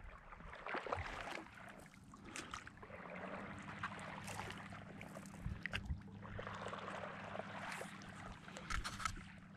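Water lapping and splashing against a paddleboard in swells, with small slaps, as a passing boat's wake rolls under it. A faint steady low hum comes in about two or three seconds in.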